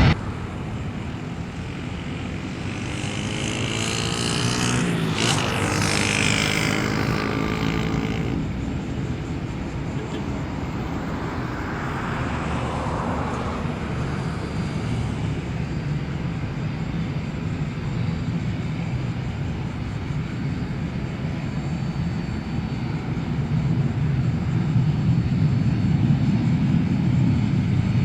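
Boeing 727 freighter's three Pratt & Whitney JT8D jet engines passing by, loudest about five seconds in, then a steady low rumble that grows a little louder near the end.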